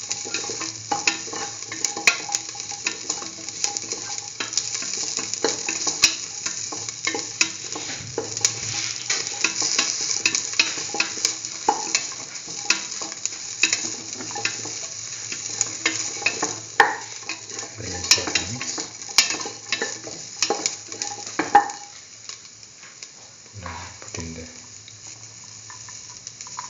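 Sliced onion and shallots frying in hot oil in a metal pan, a steady sizzle with frequent clicks and scrapes of a utensil stirring against the pan. The sizzle and stirring die down over the last few seconds.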